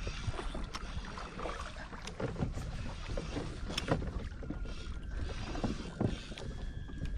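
Wind and water on a fishing kayak at sea, a steady low rumble and hiss, with scattered light clicks and knocks.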